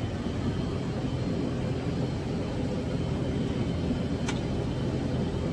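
Steady low drone of an ATR 72-600 turboprop heard from inside its passenger cabin, with a single short click about four seconds in.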